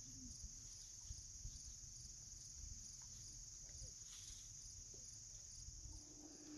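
Faint, steady, high-pitched insect chorus, with a fainter pulsing call repeating about twice a second.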